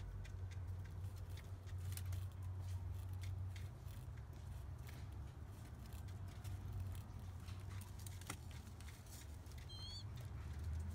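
Faint small clicks as a pigeon feeds its newly hatched squab beak-to-beak, over a steady low hum. A brief high chirp comes near the end.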